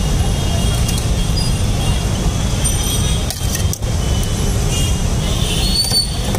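Steady low rumble of street traffic, with faint short high tones scattered through it.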